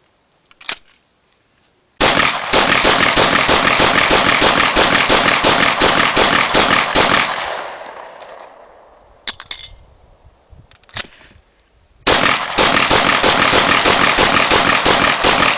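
Grand Power K100 9 mm pistol firing L7A1 ball ammunition: a single shot, then a long string of rapid shots, two more single shots, and another rapid string near the end.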